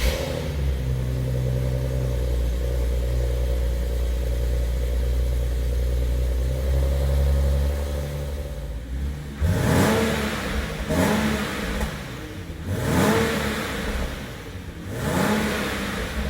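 Stock-exhaust Nissan 370Z's 3.7-litre V6 idling steadily just after a cold start, then revved in a series of short blips, one about every two seconds, each rising and dropping back to idle.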